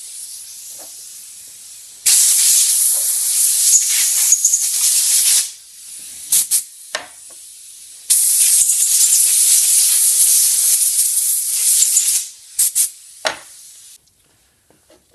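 Compressed-air blow gun blasting air: two long bursts of loud hiss, each about three to four seconds, starting about two seconds in and about eight seconds in, with a few short puffs between them and after.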